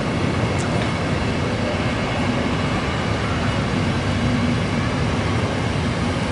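Vintage Deutsche Reichsbahn passenger coaches rolling past on the track: a steady rumble of wheels on rails, with a brief high squeak about half a second in.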